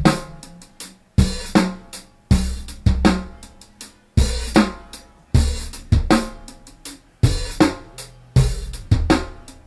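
Drum loop played through a Make Noise QPAS stereo filter set to high resonance: each kick and snare hit excites the filter peaks, which ring with short pitched tones after the hits, while the radiate control spreads the peaks apart. A steady beat, with the kick massive, landing about once a second.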